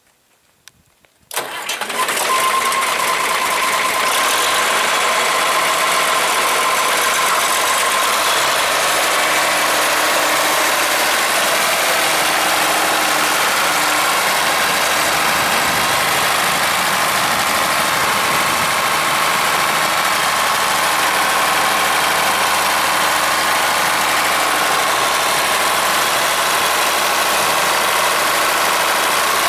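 John Deere 4020's six-cylinder diesel engine starting about a second in, then running steadily as the tractor is driven.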